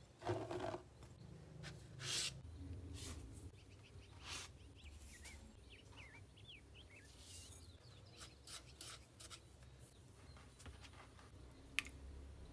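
Soft handling sounds of baking ingredients going into a glass mixing bowl: flour poured in, then light taps, clicks and rustles from scoops and containers, with one sharp click near the end.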